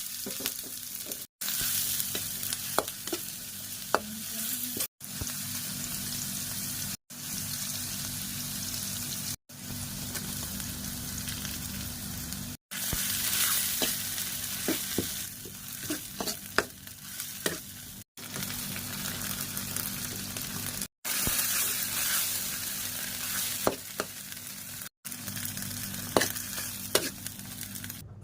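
Hot oil sizzling steadily as stuffed bread dough deep-fries, with scattered light ticks of a utensil against the pan. The sizzle cuts out for a split second about eight times.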